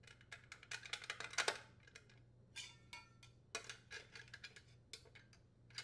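Faint clicks, taps and light metallic clinks of a small-engine sheet-steel muffler, its heat shield and mounting bolts being handled and turned over, one clink briefly ringing about halfway through. A low steady hum runs underneath.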